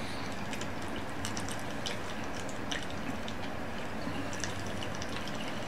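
A man chugging beer from a tall can: faint gulps and liquid sounds, scattered small clicks, over a steady low hum.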